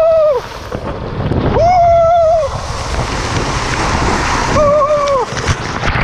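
Water rushing and spraying against the camera, with wind noise, as a rider slides down a water slide. A man's voice gives three long held yells, each bending down in pitch as it ends, and he splashes down near the end.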